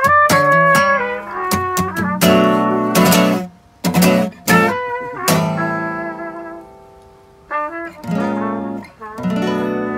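Guitar music: plucked notes and chords. It fades to a lingering decay in the middle and picks up again with chords about seven and a half seconds in.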